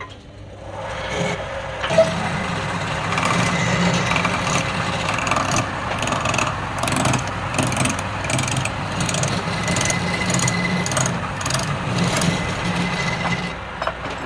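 A wood lathe running while a tool scrapes the spinning wood, with rhythmic scraping strokes about twice a second. It starts just under a second in and stops shortly before the end.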